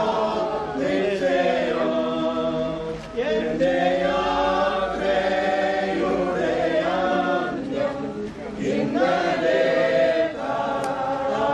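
A group of voices singing a funeral hymn together, in long held phrases with short breaks between them.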